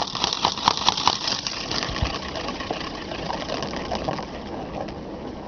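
A cat toy's ball spun by hand and rolling round with a rapid clattering rattle that gets gradually quieter as it slows.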